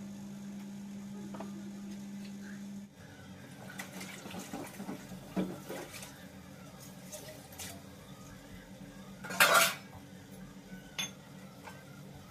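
Kitchen utensils clattering: steel dishes and cutlery clinking and knocking on and off, with one louder clatter about two-thirds of the way through. A steady low hum runs under the first few seconds and cuts off suddenly about three seconds in.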